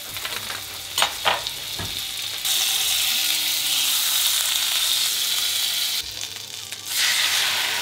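Butter sizzling in a hot non-stick frying pan, with a few sharp pops in the first two seconds. The sizzle gets louder about two and a half seconds in, dips briefly near six seconds, then rises again as the beaten eggs are poured into the hot butter.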